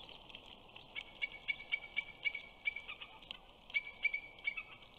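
Young eagle in its nest giving a rapid series of high, chipping calls, about four a second, in two runs broken by a short pause midway.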